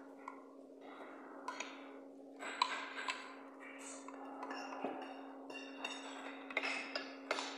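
Metal spoon clinking and scraping against a ceramic soup bowl during eating, with several sharp, ringing clinks and chewing between them, over a steady low hum.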